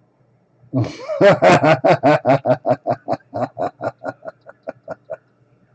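A person laughing: a long run of quick ha-ha pulses, about six a second, starting about a second in and fading away over some four seconds.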